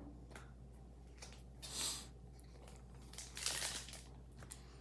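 Packaging and cards being handled on a table: two soft crinkling rustles, about two seconds and three and a half seconds in, with a few light clicks between.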